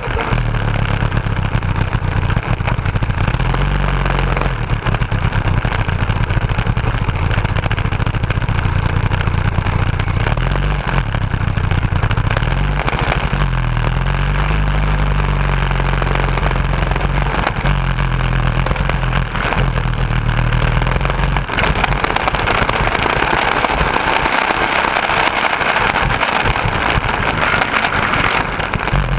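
Go-kart powered by a 10 hp snowblower engine, a single-cylinder four-stroke, running while driving, its pitch rising and falling as the throttle changes. From about two-thirds of the way through the low engine note fades and the sound turns harsher.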